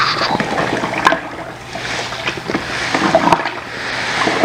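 Granulated sugar pouring from a plastic bucket into a plastic fermenting bucket: a steady rushing hiss of falling grains, with a few small knocks.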